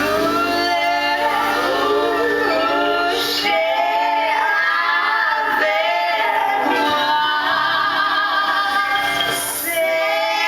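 Women singing a lively show tune with instrumental accompaniment, performed live.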